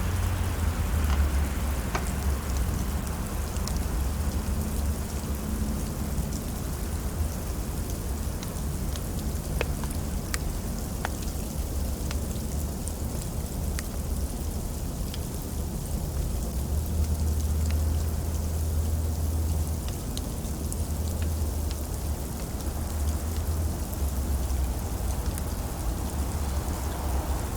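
Heavy rain pouring down steadily, a dense hiss of rain on surfaces with a deep low rumble underneath and scattered individual drop ticks.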